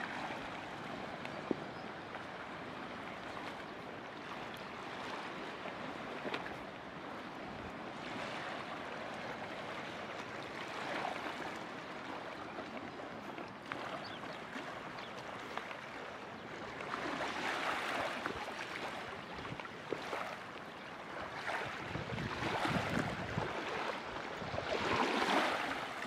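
Small waves washing and lapping on a pebble shore in a sheltered harbour, swelling louder a few times in the second half, loudest near the end.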